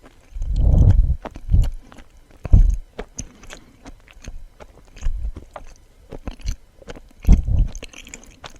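Close-miked chewing of suama, a soft Japanese rice-flour cake: irregular chews with small mouth clicks between them and brief pauses.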